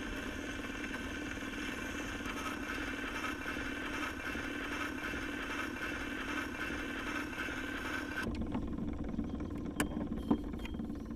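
Acoustic gramophone with a Columbia soundbox playing on past the music of a 78 record: a steady surface hiss and crackle from the needle in the groove. About eight seconds in the hiss cuts off, leaving a low rumble and a few sharp clicks.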